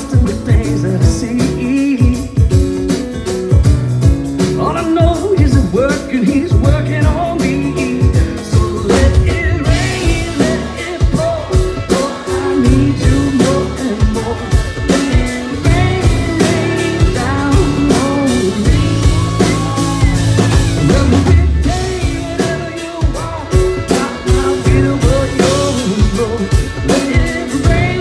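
Live band playing a rock worship song with singing: electric guitar, drum kit, keyboard and fiddle. The drums and cymbals come in fuller about ten seconds in.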